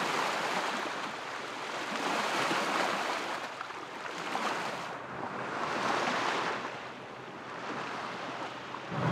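Ice slush and water hissing along the hull of a Najad 440 sailboat as it pushes through slush ice. The hiss swells and fades several times.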